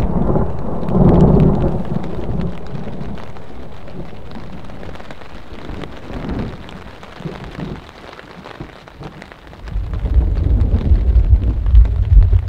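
Thunder rolling, loudest about a second in and fading away over several seconds, while rain patters on a tarp overhead. A second loud, low rumble starts about ten seconds in.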